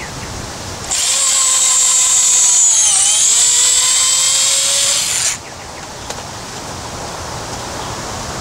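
Cordless drill running for about four seconds, boring into the old wooden handle stub lodged in the eye of a sledgehammer head to drill it out. The motor whine dips in pitch briefly in the middle as the bit takes load, then cuts off suddenly.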